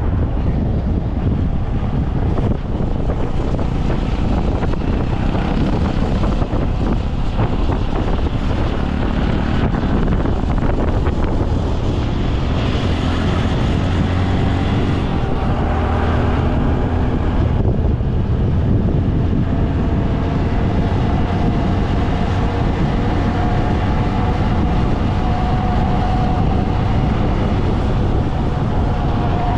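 Wind buffeting the microphone of a moving motorcycle, with the motorcycle's engine running steadily underneath; a faint engine note comes and goes and shifts in pitch.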